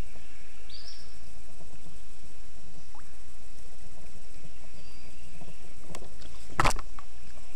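Kayak on the water: a steady low noise, a short high chirp about a second in, and a single sharp knock near the end.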